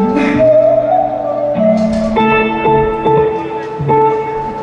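Live guitar music at a sound check, with held, ringing notes changing every second or so and a wavering held tone near the start.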